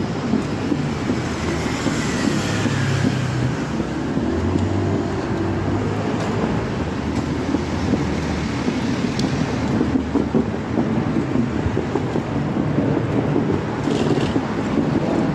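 Steady street traffic noise with wind rumbling on the microphone.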